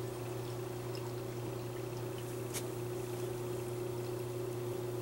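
Milk stout being poured from a glass bottle into a glass, over a steady low hum; one short click about two and a half seconds in.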